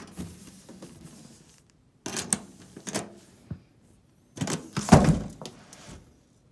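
Metal lunchbox-style Nike shoe case being handled and unlatched: a few clatters and clicks from its metal latches and handle, then a heavy thump about five seconds in.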